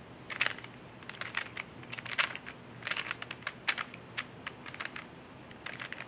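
A 3x3 Rubik's cube being turned by hand through an algorithm: quick plastic clicks and clacks of the layers rotating, in irregular runs.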